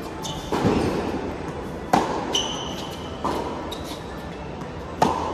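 Tennis rally on an indoor hard court: a ball struck by rackets and bouncing, four sharp echoing pops about a second and a half apart, the loudest about two seconds in. Short high squeaks of court shoes twice between the hits.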